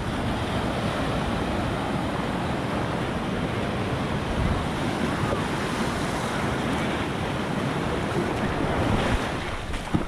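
Sea surf breaking and washing in foaming shallows, a steady rush and hiss of water, with wind buffeting the microphone.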